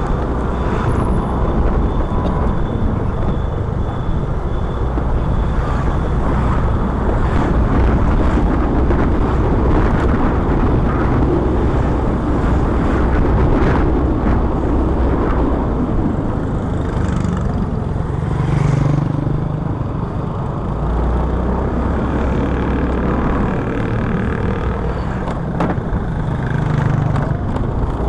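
Steady rumble of wind on the microphone with the engine and tyre noise of a moving motorcycle and the surrounding street traffic.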